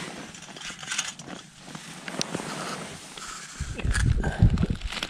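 Light metallic clicks and clinks as a brass spirit burner is handled and set into a Clikstand stove's metal windscreen. From about halfway through, a loud, uneven low buffeting on the microphone.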